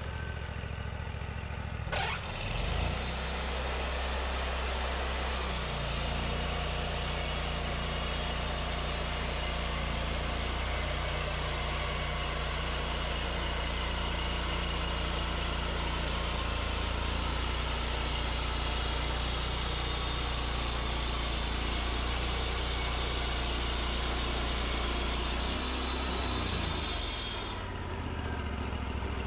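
Wood-Mizer LT40 band sawmill making a cut through a white pine log: the engine revs up about two seconds in and the band blade saws steadily through the log with sawdust blowing out of the chute. Near the end the cut finishes and the engine drops back toward idle.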